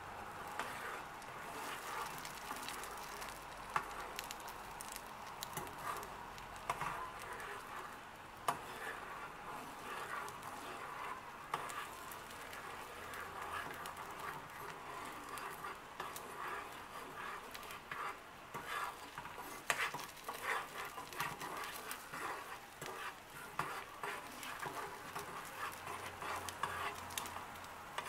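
Beaten eggs sizzling in a frying pan while a fork stirs and scrambles them, with frequent small scrapes and taps of the fork against the pan.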